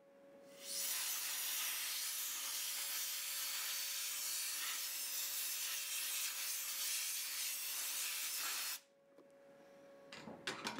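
Compressed-air blow gun hissing steadily as it blows a handheld refractometer dry. The hiss pauses briefly at the start and cuts off about nine seconds in. A few knocks follow near the end as the gun is hung back on its holder.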